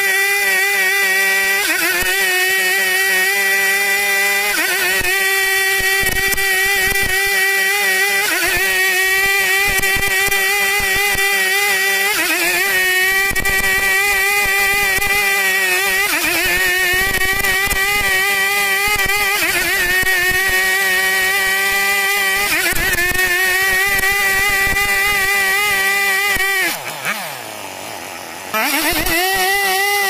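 Two-stroke chainsaw running at full throttle, ripping lengthwise along a log to saw off planks, its pitch wavering every few seconds. Near the end it drops to idle for a second or two, then opens up again.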